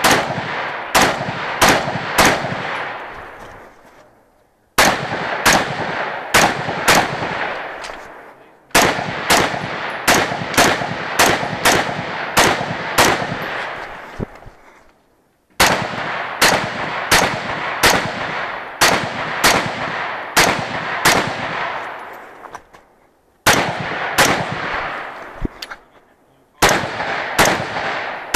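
Semi-automatic rifle fired in rapid strings of shots, about two to three a second, with brief pauses of about a second between strings. Each shot rings with a fading echo.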